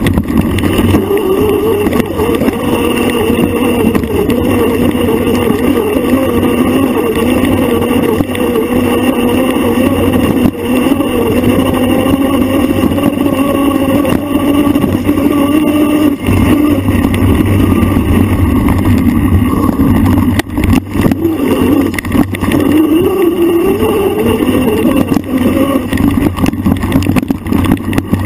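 A motor runs loud and steady, its pitch rising and falling with speed, over the jolting of a bike on a rough dirt trail. A cluster of knocks comes about two-thirds of the way through.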